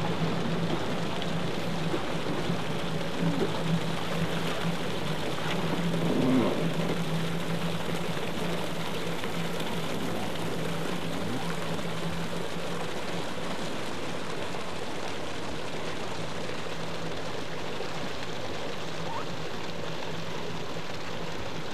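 Yamaha VX WaveRunner engine running at slow idle, a steady low hum over a constant hiss of water.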